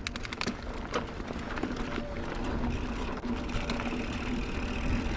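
Specialized Stumpjumper mountain bike setting off down a rough dirt trail: tyre and trail noise with wind rushing over the camera microphone, growing louder as it picks up speed, and a quick run of sharp clicks in the first second.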